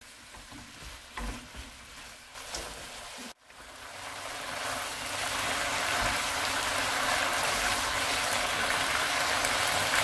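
Pork in red pepper sauce sizzling in a frying pan, stirred with chopsticks, with a few light knocks against the pan. After a sudden cut about three seconds in, the sizzle of pork and bean sprouts stir-frying swells to a loud, steady hiss.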